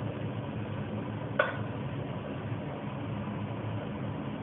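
Steady low hum, with a single short clink about one and a half seconds in.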